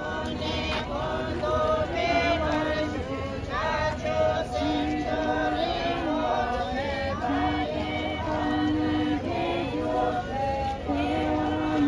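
A group of voices, mostly women's, chanting a Tibetan Buddhist prayer in unison while walking. It is a slow melody of held notes that step up and down.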